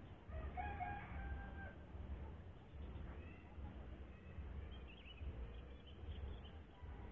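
A rooster crowing once, a held call of about a second and a half starting about half a second in, over a steady low rumble, with fainter bird calls later.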